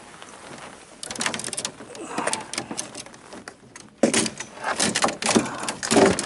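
Fishing rods clacking against one another and against the boat as one is picked out of a bundle lying on the deck. The sound is a run of sharp knocks and rattles that starts about a second in and gets louder and busier in the second half.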